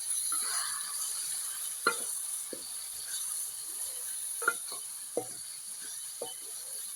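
Minced meat frying in ginger-garlic paste and onions, sizzling steadily while being stirred and browned. A metal spoon scrapes and knocks against the pan about once a second.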